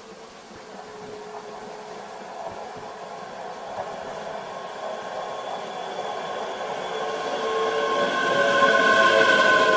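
A train approaching and getting steadily louder, with several steady high tones coming in near the end.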